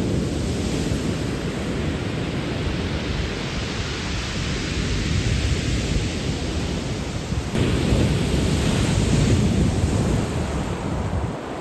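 Ocean waves breaking and washing up a pebble beach: a continuous loud rush with deep rumble, swelling into a louder surge about seven and a half seconds in.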